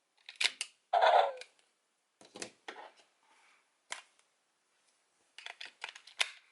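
Plastic clicks and snaps from a Power Rangers Dino Fury Key toy being handled and fitted, several single clicks, a short burst of sound about a second in and a quick run of clicks near the end.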